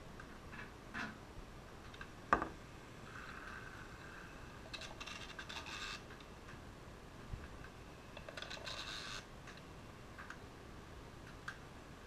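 Faint clicks with one sharper click about two seconds in, and two short spurts of whirring, about a second each, from the small motors of a toy RC hovercraft on bath water.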